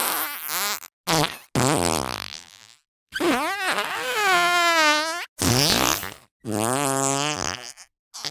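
A run of cartoon fart sound effects: about six separate farts with short silences between them, each a pitched sound whose pitch wavers and wobbles. The longest, in the middle, lasts about two seconds.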